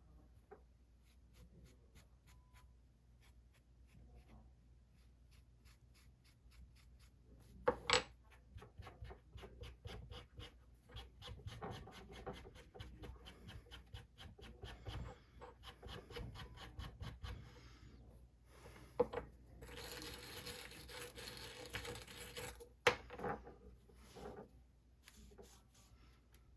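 Small metal fishing-reel parts being worked by hand on a bench: quick clicking and ticking, rubbing and scraping, and a few sharp knocks of metal on a hard surface. About twenty seconds in comes a steady hiss of a couple of seconds.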